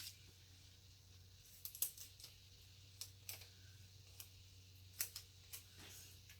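A few faint, sharp clicks and light handling noises of paper and stickers being worked by hand, scattered irregularly over a faint low hum.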